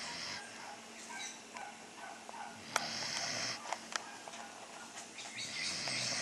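A pet snoring in its sleep, with a rasping snore roughly every three seconds, three in all.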